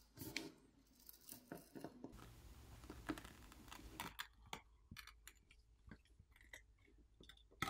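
Faint clicking and scraping of pry tools working a phone's glass back plate loose from its softened adhesive, with many small separate clicks.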